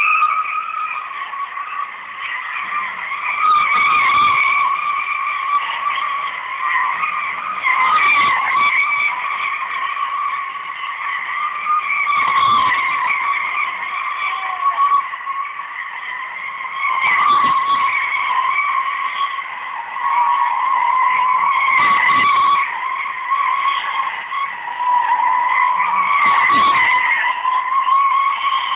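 Vehicle tyres squealing continuously in a sustained skid, swelling louder about every four to five seconds.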